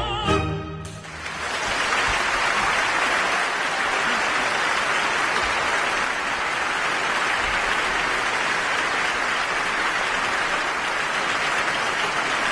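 The tenor's last sung note and the orchestra's final chord cut off within the first second, and a large audience breaks into steady applause that carries on through the rest.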